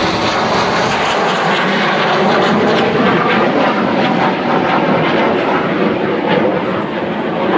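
Jet aircraft flying over: loud, steady engine noise.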